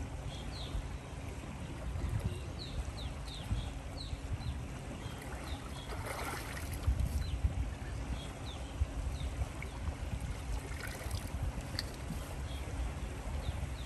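Shallow water sloshing around a man wading in waders beside a small aluminium jet boat, with a louder splash about six seconds in as he climbs aboard, over a steady low rumble of wind on the microphone.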